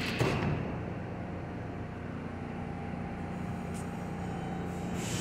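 Doors of an R160 subway car banging shut, then the stopped train humming steadily at the platform, with a faint steady tone joining partway through as it readies to pull out.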